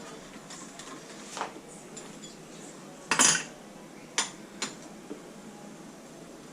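Metal hand tools clinking and clattering against motorcycle engine parts while bolts are loosened: a few scattered clinks, the loudest a short clatter about three seconds in, then two sharp clicks about a second later.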